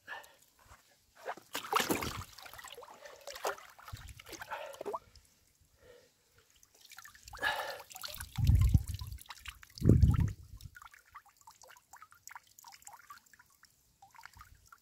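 A large, wet grass carp being held and turned over in the hands: rustling and wet handling noise with scattered clicks, and two heavy low thumps past the middle.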